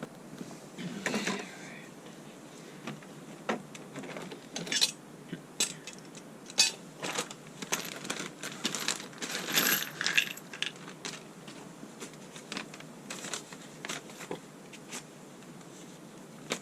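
Roof rack hardware being handled: a scattered series of light metallic clinks, taps and knocks, some ringing briefly, with short rustling handling noise about a second in and again around the ten-second mark.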